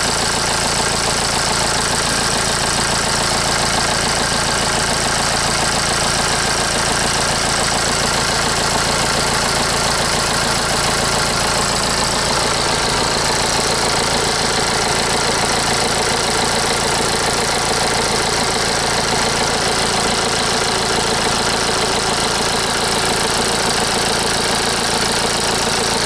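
BMW N47 four-cylinder diesel engine idling steadily, heard close up in the engine bay. The engine shakes the car at tick over with no fault codes stored, and the mechanic suspects a misfire or the flywheel.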